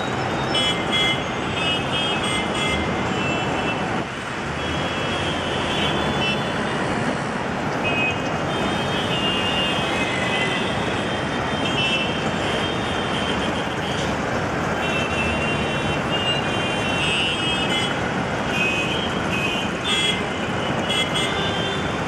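Busy road traffic: a steady wash of engine and tyre noise from many passing vehicles. Short high-pitched tones come and go throughout.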